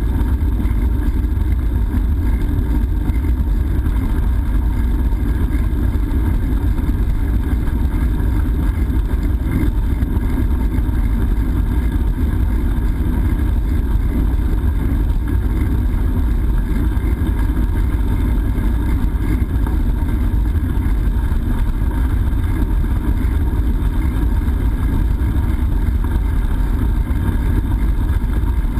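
Steady low rumble of wind buffeting and tyre and road vibration picked up by a GoPro action camera on a moving bicycle, even throughout with no distinct events.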